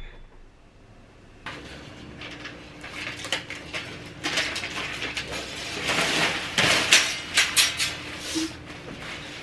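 Washing machine handled and starting up: a steady hum sets in about a second and a half in, with irregular clattering and knocks over it.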